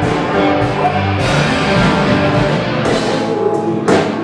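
Live band playing a rock and roll song, an instrumental stretch between sung lines with guitar and drums.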